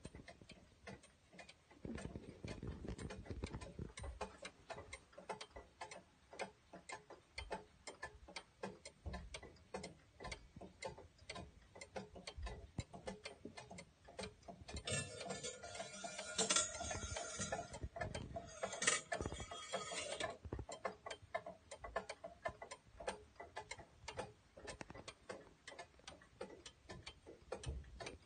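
Triple-fusee brass skeleton clock ticking steadily. About fifteen seconds in, a louder noisy passage of some five seconds with faint ringing tones sits over the ticking.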